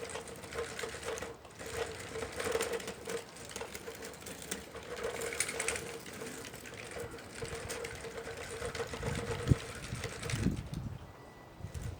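Electric drive of a large-scale RC model machine running with a steady whine and a fast mechanical clatter, with a sharp knock near the end; it stops about ten and a half seconds in.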